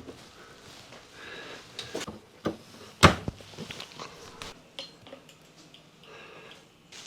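A scatter of sharp clicks and light knocks from handling and fitting a new wall switch, the loudest click about three seconds in.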